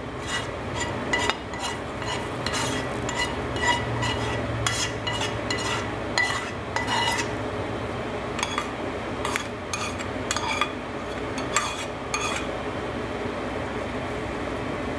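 Chopped onion and celery scraped out of a metal skillet into a foil pan of dressing: a quick run of clinks and scrapes of utensil on pan, thinning out after about twelve seconds. Then the moist dressing is squished by hand over a steady faint hiss.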